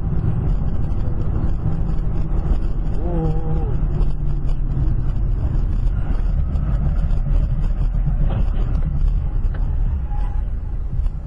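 Steady road and engine rumble inside a car driving at highway speed, recorded by a dashcam microphone. A brief pitched, voice-like call comes in about three seconds in.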